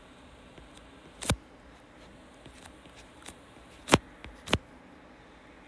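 A handful of sharp taps of a stylus on a tablet screen during handwriting, scattered and irregular, the loudest about four seconds in.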